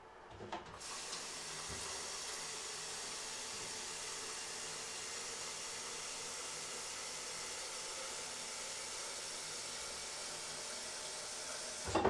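A steady, even hiss that starts just under a second in and cuts off abruptly near the end with a knock.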